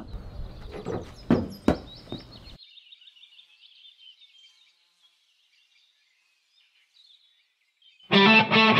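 Two sharp knocks over a noisy background in the first couple of seconds, then faint high chirping that fades to near silence. Loud distorted electric guitar music cuts in near the end.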